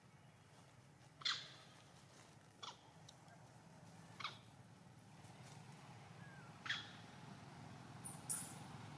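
Five or six brief high squeaks from an animal, spaced a second or two apart, the last two close together near the end, over a faint steady background.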